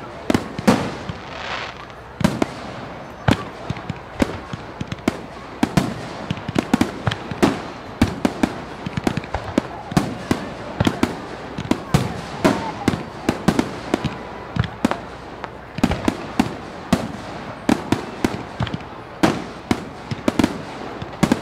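Fireworks display: a dense, continuous run of sharp bangs and crackling reports, several a second, over a steady background noise.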